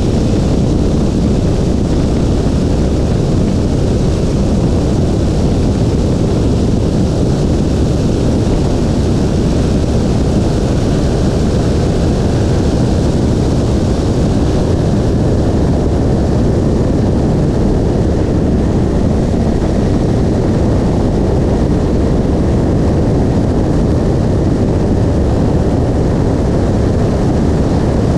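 Nieuport 23 C-1 biplane's engine and propeller running at full take-off power, heard from the open cockpit through the take-off run and lift-off. The noise is loud and steady throughout.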